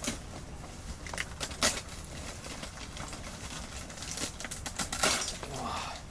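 Rustling of a fabric bag being rummaged through by hand, with scattered sharp clicks and knocks of fishing tackle inside it. The loudest knock comes about five seconds in.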